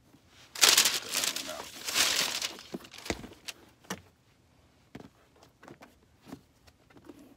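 Paper crinkling and rustling for about two seconds as a sneaker is pulled from its box, followed by a few light taps and knocks from handling the shoes.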